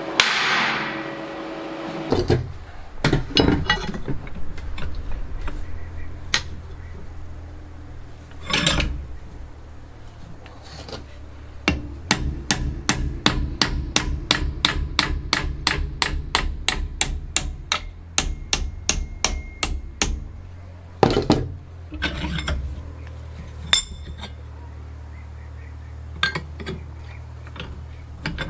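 Hammer blows on steel: scattered single knocks, then a fast, even run of about four strikes a second for several seconds, then a few more knocks, over a steady low machine hum.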